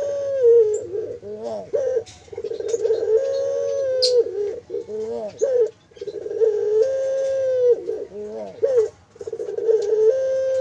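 Puter (Barbary dove) cooing: a long, held coo that steps up in pitch and ends in a wavering flourish, repeated about every three and a half seconds.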